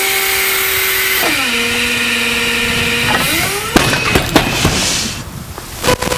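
Forklift engine and hydraulics whining steadily, shifting to a lower pitch about a second in and gliding upward just before the drop. Then a 600-pound steel gun safe dropped from about 15 feet lands on solid concrete with one loud crash, followed by a few smaller knocks as it settles.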